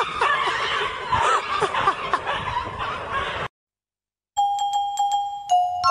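Dogs yelping and whining over a noisy background, cut off abruptly about three and a half seconds in. After a short silence, a bright chiming tune of single struck notes on glockenspiel-like mallet percussion begins.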